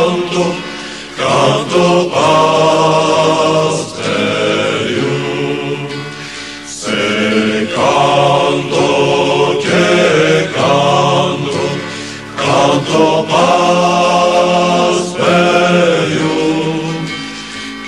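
A choir singing a slow chant-like song, in sung phrases of a few seconds each with short breaks between them.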